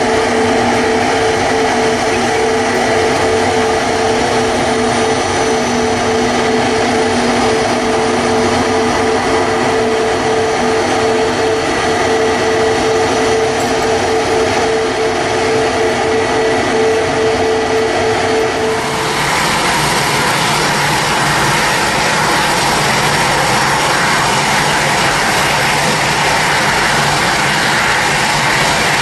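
Airbus A320-family airliner's jet engines at takeoff power, a loud steady rush with a held whine. About two-thirds of the way through, the sound cuts abruptly to a different, brighter jet-engine rush without the whine.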